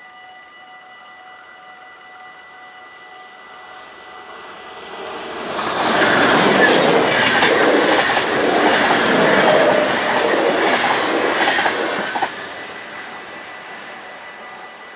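A double-deck electric passenger train passes at speed over a level crossing. Its noise builds for about a second and a half, then runs loud with wheel clatter for about six seconds before cutting off sharply. Through it all the level crossing's warning bell rings steadily.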